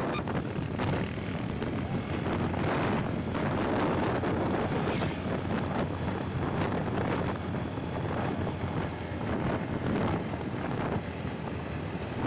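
Wind buffeting the microphone over road and vehicle noise from a moving ride, in loud uneven gusts.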